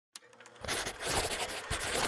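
Rapid scratchy pencil-on-paper scribbling, a sketching sound effect made of many quick strokes, starting about half a second in.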